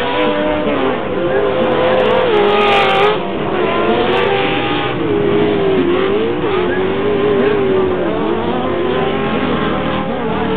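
Engines of several off-road race trucks running hard on a dirt course, their pitch rising and falling continuously as the drivers accelerate and lift.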